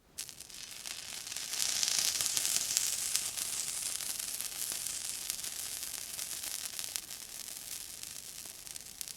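Water sizzling on a hot surface: a hiss with fine crackles that starts suddenly, swells over the first couple of seconds and then slowly dies away.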